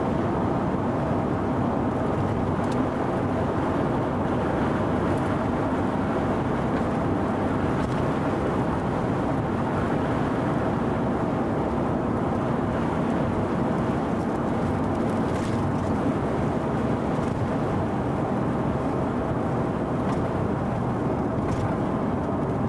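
Steady engine and road noise inside a moving car.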